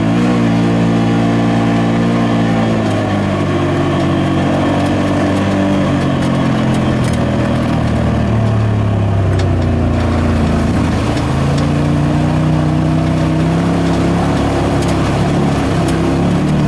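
Side-by-side UTV engine running under way, its pitch falling about three seconds in, sagging again around the middle, then rising as it picks up speed. A few faint clicks sound over it.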